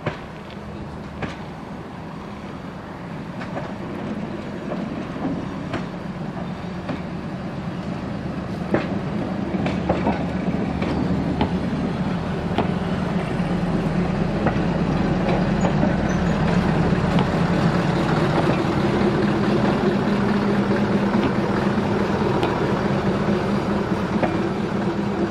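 Narrow-gauge diesel railcar and its trailer coach rolling slowly past, the engine's steady hum growing louder as it nears. The wheels click over rail joints now and then.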